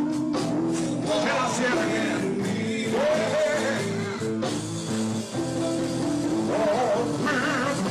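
Gospel song sung with band accompaniment: a singer's voice glides and wavers over steady instrumental chords.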